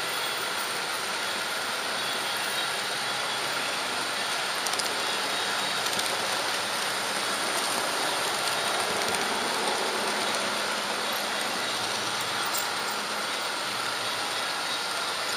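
HO-scale Märklin model train running along its track, a steady mechanical running noise of small wheels on rails and the locomotive's motor.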